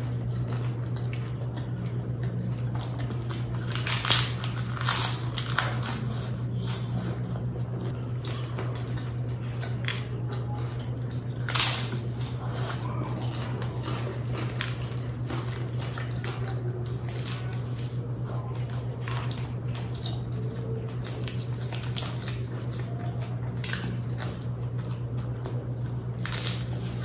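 Close-miked eating: a person biting and chewing pieces of fried kachori topped with spicy chole. The louder bites come a few seconds in, again near the middle, and just before the end, over a steady low hum.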